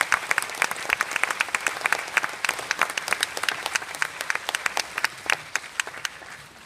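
Audience applauding, a dense patter of clapping that thins out and fades away near the end.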